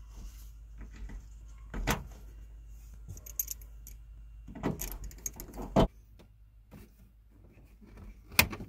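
Handling of the truck cab's sun visor and headliner trim while a wire is tucked along it: a few separate sharp plastic clicks and knocks with light rustling between them.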